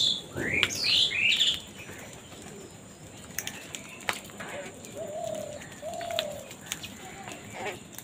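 House crows calling, with several quick loud calls in the first second and a half. After that, softer pecking and scuffling of the flock at food on the ground, with two short low calls about five and six seconds in.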